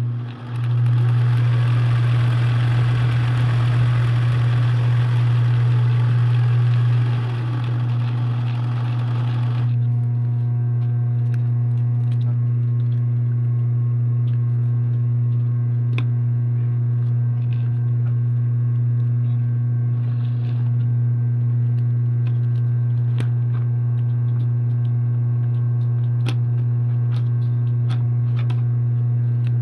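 A steady low electrical-sounding hum, with a broad hiss over it for about the first ten seconds that then cuts off, leaving a few faint clicks.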